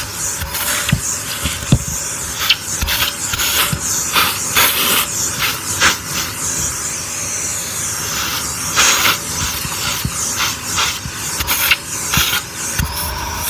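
Vacuum cleaner running with a steady hissing rush of air, broken by frequent short knocks and rattles.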